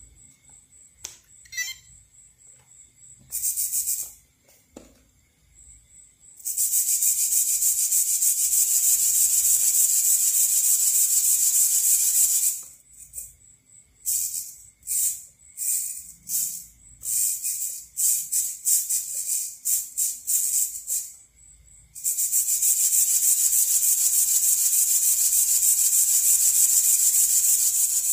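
Emax ES08MA metal-gear micro servos buzzing as they swing ornithopter wing spars back and forth under radio control, a high-pitched grinding whir. It starts after a few quiet seconds with short blips, runs steadily for about six seconds, then comes in short separate bursts, then runs steadily again near the end.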